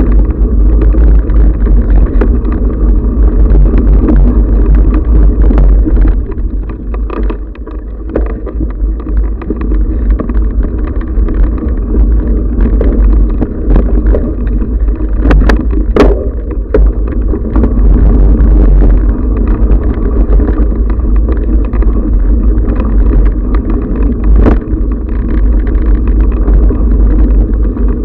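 Steady low rumble and rattle of an action camera jolting along a dirt singletrack on a bike, with wind buffeting the microphone. A couple of sharp knocks about halfway through and another near the end.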